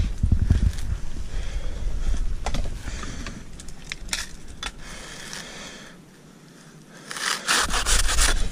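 Dry palm fronds and fibre crackling and scraping as they are handled and brushed against up in the tree. The sound comes in irregular clicks and scrapes, with a louder, denser burst of crackling near the end.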